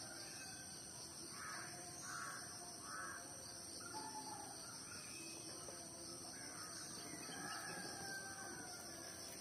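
Birds calling in the background: three short calls in quick succession about a second and a half in, then scattered calls, over a steady high-pitched hiss.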